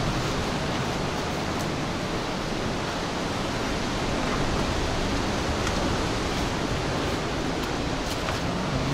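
Steady rushing noise of wind and sea surf along a rocky coast, with a flickering low rumble of wind on the microphone.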